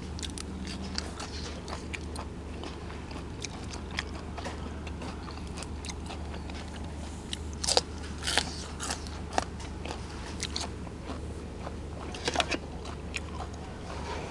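Close-miked mukbang eating: a person biting and chewing crunchy food, with many small crunches and a few louder bites about seven to eight seconds in and again near twelve seconds.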